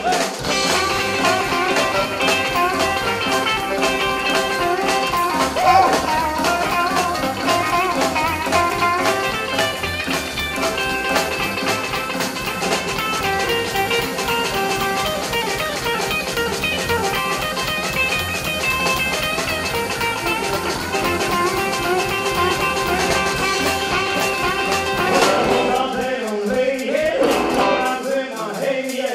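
A rockabilly band playing live: upright bass, electric and acoustic guitars and drums, with a steady beat.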